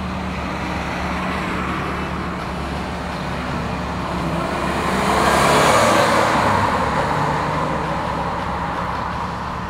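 Road traffic on a multi-lane road: engines and tyres over a steady low hum, swelling loudest about five to six seconds in as the 1984 Nissan 300ZX Turbo, with its turbocharged 3.0-litre six, drives past close by.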